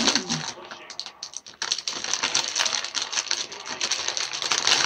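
Plastic Warheads sour-candy wrapper crinkling and crackling in the hands as it is handled, a dense, uneven run of rapid crackles.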